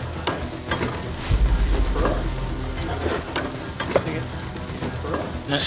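Food sizzling as it fries in a pan, with utensils clinking and knocking against metal pans and bowls a few times.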